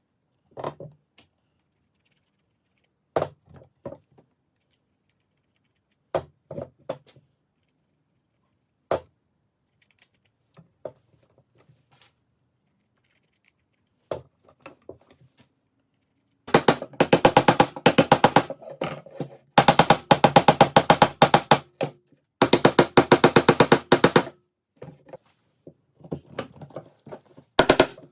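Scattered single wooden knocks as pieces are handled, then three bursts of about two seconds each of fast, evenly repeated rattling from a power tool, followed by a few more knocks.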